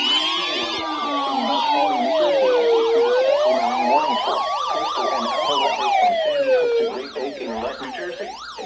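Several sirens sounding at once: a slow wail rising and falling about every four seconds, overlaid with many faster yelping sweeps. The slow wail stops about seven seconds in and the rest fade out near the end.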